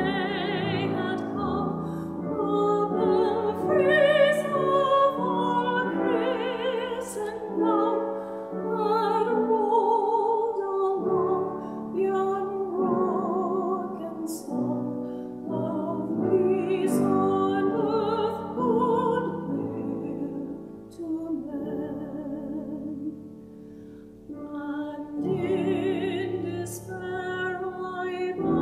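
A woman singing solo in a classical style with a wide vibrato, accompanied by piano. A softer phrase comes about two-thirds of the way through before the voice swells again.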